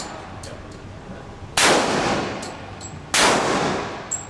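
Two gunshots about a second and a half apart, each followed by a long echoing tail.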